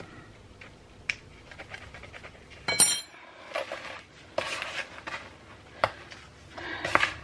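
A metal spoon clicking against a plastic bath bomb mould, with one sharp, ringing metallic clink about three seconds in. After it come short bursts of gritty rustling as crumbly bath bomb mixture is scooped and packed into the mould by hand.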